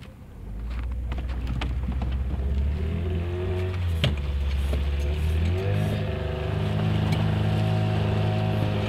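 Tohatsu 18 outboard motor running steadily while pushing a river ferry. About six seconds in it is throttled up and settles into a higher steady drone.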